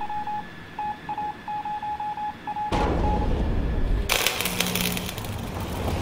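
Short electronic beeps at one pitch in an irregular, Morse-like pattern over a faint steady hum. About three seconds in, a loud low rumble starts and the beeps stop. A second later a loud hissing noise joins the rumble.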